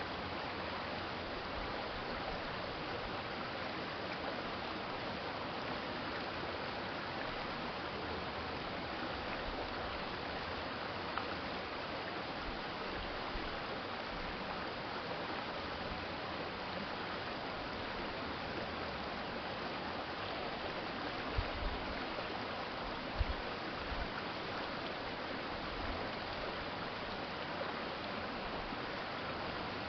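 Small city stream flowing, a steady rush of running water. A few brief low thumps sound about two-thirds of the way through.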